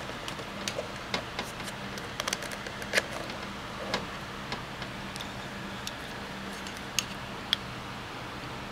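Multimeter test probes and their leads being handled: irregular small clicks and taps of the probe tips and plastic, over a faint steady hum.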